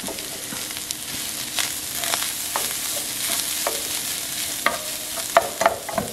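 Seasoned ground beef frying in a pan with a steady sizzle while a utensil stirs it, scraping and knocking against the pan. The knocks come more often near the end.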